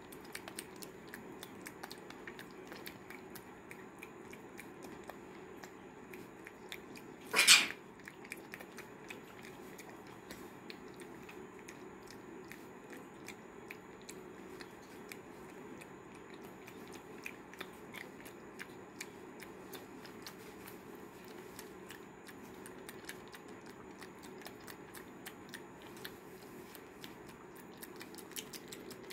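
Pet macaque chewing a mouthful of porridge, with many small wet mouth clicks and smacks. One short, loud sound comes about seven and a half seconds in.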